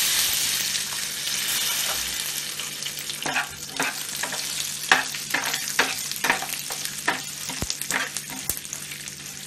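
Garlic, ginger and cumin seeds sizzling in hot oil in a nonstick frying pan along with cashews and whole spices. The sizzle is loudest at the start and eases off, while a spatula stirring them scrapes and taps against the pan again and again.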